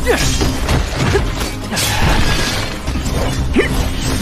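Sword-fight sound effects from an animated duel: several sharp blade clashes and swishes over dramatic background music.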